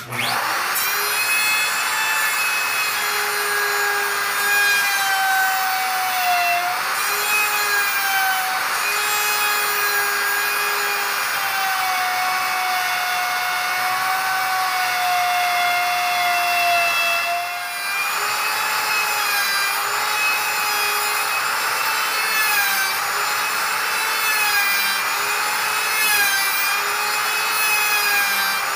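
Porter-Cable router starting up and routing a housing into a rough-sawn timber beam: a high motor whine over the hiss of the bit cutting wood, its pitch sagging and recovering as the cutter loads up, with a brief dip about eighteen seconds in.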